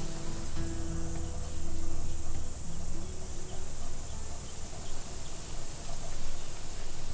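Steady high-pitched chirring of insects, with the last low sustained notes of a background music track dying away in the first three seconds.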